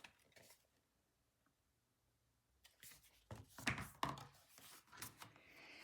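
Near silence, then, about halfway through, a few soft rustles and taps of a picture book's page being turned and handled.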